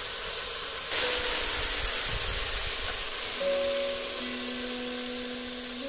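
Chicken and masala sizzling in a large steel pot over a wood fire, a steady hiss that gets louder about a second in, as the meat cooks in the water it has released. Faint steady tones of background music join about halfway through.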